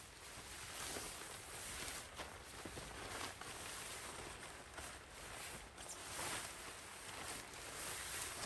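Tent fabric being handled and shifted during pitching: irregular rustling and shuffling that swells and fades, with a few faint light knocks.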